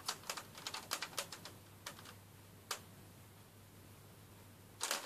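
Light plastic clicks and taps from handling a Nerf blaster and its sight: a quick run of them at first, then two single clicks, then only a faint low hum until a rustle starts near the end.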